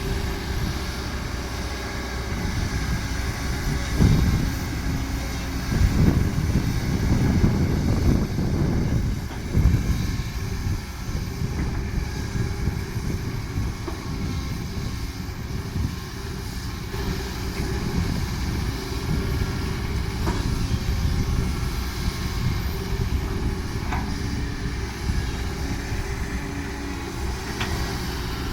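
Heavy diesel engine running with a steady low rumble, growing louder in several swells between about four and ten seconds in.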